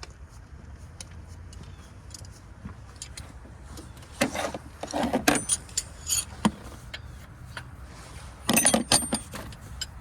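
Metal hand tools and parts clinking and rattling against each other, in scattered light clicks with two louder bursts of clatter, one about four seconds in and one near the end, over a steady low hum.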